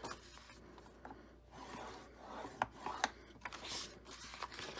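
Sheet of patterned paper being slid, turned and scored on a plastic explosion box punch board: dry rasping and rubbing strokes that come and go, with two sharp taps about midway.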